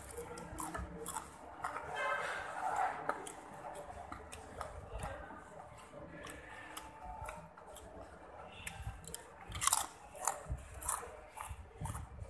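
Close-up chewing and biting of fried catfish and rice eaten by hand, with wet mouth smacks and small crunches.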